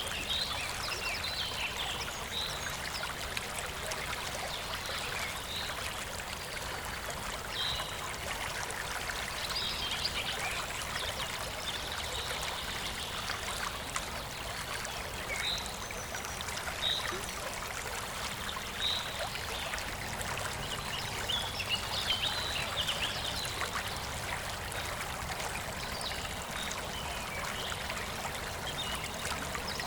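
Steady trickle of running water, like a small stream, with birds chirping in short calls now and then throughout.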